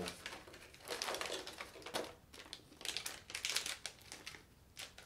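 Plastic packaging crinkling in several irregular bursts as bagged parts are handled.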